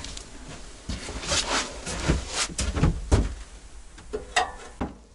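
A pot being handled and set on a wood-burning stove: a string of about ten short knocks and clanks, scattered unevenly.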